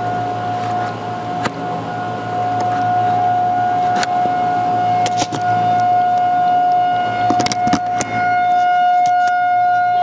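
Outdoor tornado warning siren sounding one steady, unwavering tone, with scattered sharp clicks and knocks over it.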